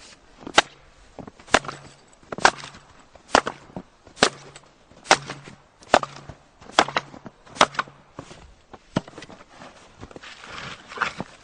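Axe splitting firewood: a steady run of sharp chops a little under one a second, about nine in a row, then a few weaker knocks near the end.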